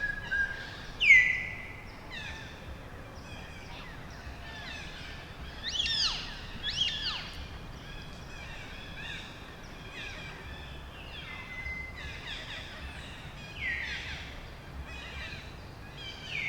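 Birds calling over quiet forest ambience: scattered high chirps and quick downward-sweeping whistles, the loudest about a second in and a pair close together about six seconds in.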